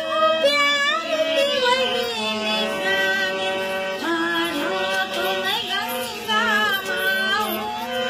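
Elderly woman singing to her own harmonium accompaniment. The harmonium holds steady reed chords beneath her voice.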